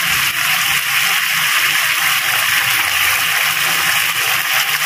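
Dark soy-and-chili sauce simmering in a hot wok: a steady sizzling hiss with bubbling.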